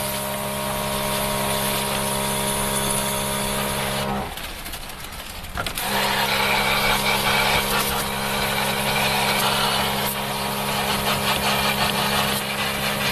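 Electric pressure-washing machine running with a steady motor hum under the hiss of its water jet spraying into an air conditioner's blower wheel. It stops about four seconds in and starts again a second and a half later.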